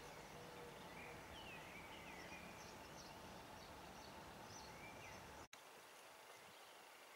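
Faint outdoor ambience: a steady hiss with a few short chirping bird calls. The sound drops out for an instant about five and a half seconds in, then goes on a little quieter.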